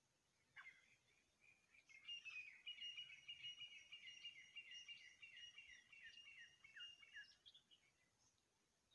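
Grey francolin pair calling: one short note about half a second in, then a rapid, unbroken run of repeated high notes lasting about five seconds before it stops.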